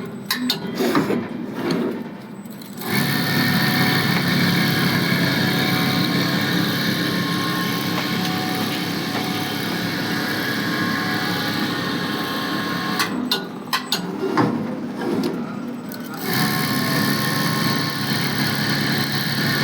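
CNC coil winding machine running, its motor giving a steady whine with several fixed tones as it winds wire onto a coil. The whine dips briefly about 2 seconds in, and a few knocks and clicks break into it about two-thirds of the way through.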